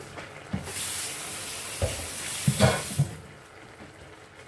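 Kitchen tap turned on and running into a sink while hands are washed, as an even hiss for about two and a half seconds that then cuts off, with a few knocks near the end.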